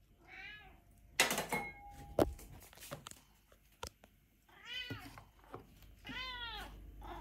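A domestic cat meowing several times, each meow rising and falling, begging while its food is set out. Sharp clattering knocks come between the meows, loudest about a second in.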